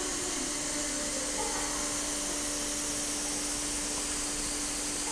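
Steady hiss with a constant low hum from a freight train standing at the platform with its signal at green, about to pull away.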